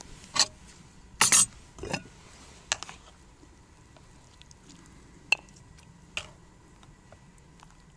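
Clinks and scrapes of a ladle, a metal pot and a bowl as soup is ladled out. There are a few separate knocks, a louder scrape a little over a second in, and a sharp click about five seconds in.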